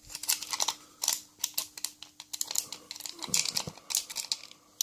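Irregular small metallic clicks and scrapes of picking tools working inside a Lane two-lever lock, the bolt held under tension that, in the picker's view, is too heavy and is keeping the levers from moving.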